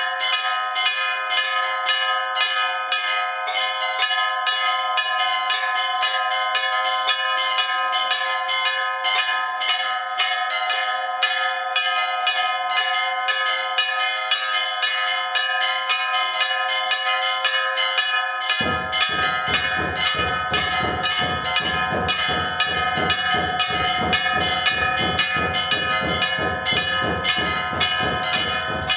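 Temple bells ringing rapidly and continuously, many ringing tones overlapping and struck several times a second. About two-thirds of the way through, a low, rapid beating joins in beneath the bells.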